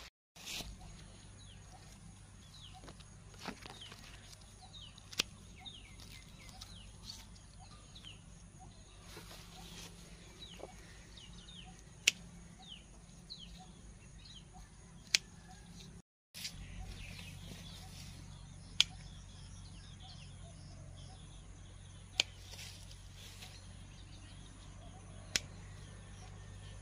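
Birds chirping in the background, with many short, high, falling chirps. Sharp clicks come every few seconds over a steady low hum.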